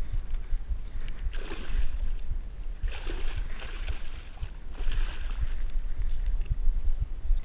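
Shallow water splashing in three bursts as a hooked pike thrashes and is scooped into a landing net.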